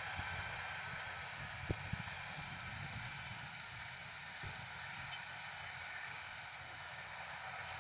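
John Deere tractor engine running steadily under load as it pulls a disc cultivator, a constant drone with a faint steady whine. Wind rumbles on the microphone, with a couple of brief knocks about two seconds in.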